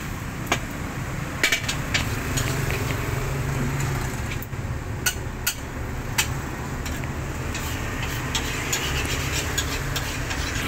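Metal spatula clinking and scraping against a steel wok as fried rice is scooped out onto paper: sharp, irregular clanks, a few to several seconds apart, over a steady low rumble.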